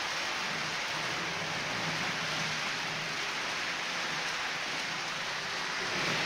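H0-scale model tank wagons rolling over the layout's track: a steady rushing hiss from the metal wheelsets on the rails, with a low rumble underneath. The train runs without a sound decoder, so this is only mechanical running noise, made harder by track laid rigidly on cork over plywood.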